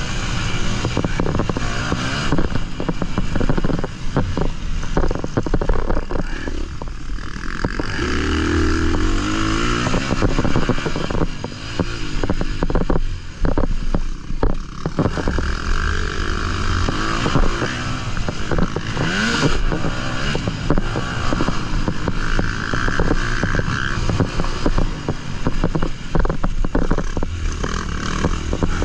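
Dirt bike engine, heard onboard, revving up and down as the bike is ridden round a motocross track, with the clatter of the bike over bumps and wind noise.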